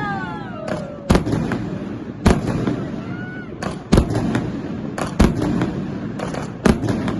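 Aerial fireworks bursting: a series of about nine sharp bangs at irregular intervals, some in quick pairs, over continuous noise from the display.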